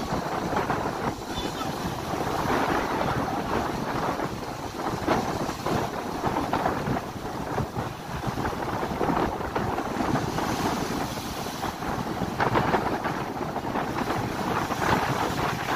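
Ocean surf breaking and washing up the beach in surges every few seconds, with wind buffeting the microphone.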